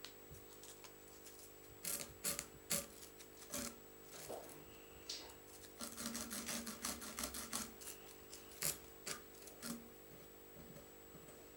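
Handling noise from tying a fly at a vise: a scattered run of small clicks and scratches, from about two seconds in until near the end, as fingers work foam and thread on the hook. A steady low hum lies underneath.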